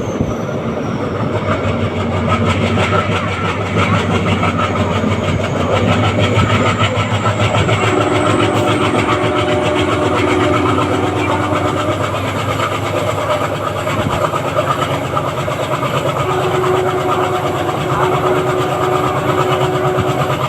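ALCO WDM3A diesel-electric locomotive, with its 16-cylinder ALCO 251 engine, chugging steadily under load as it hauls a passenger train, a fast, even beat of exhaust pulses.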